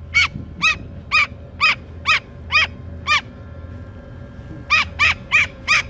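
Pet bird calling over and over, each call a short rising-and-falling cry. The calls come about two a second, stop for a second or so past the middle, then start again faster near the end.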